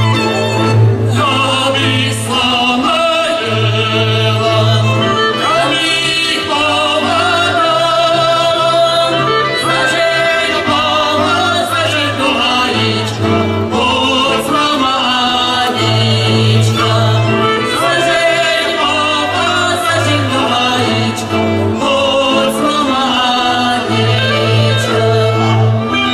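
Live folk band of fiddles and a double bass playing a dance tune, with voices singing along; the bass moves between held low notes every second or so.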